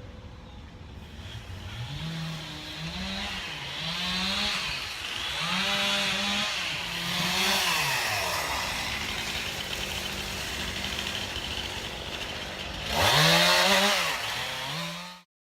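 Two-stroke chainsaw being throttled up and down again and again as it cuts, with its loudest rev near the end before the sound stops suddenly.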